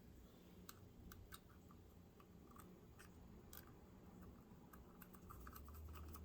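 Faint, irregular small clicks and taps of metal sewing-machine parts and screws being handled and fitted by hand, a few to several a second.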